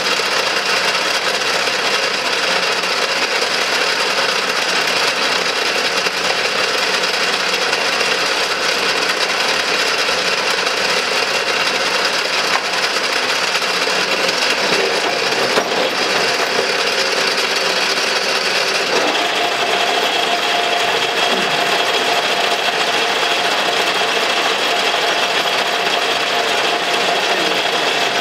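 Belt-driven 1935 engine lathe running, powered by its 1.5 kW electric motor through a belt and dry-clutch pulley, giving a steady mechanical whir. About two-thirds of the way through, the sound shifts and a new steady tone comes in.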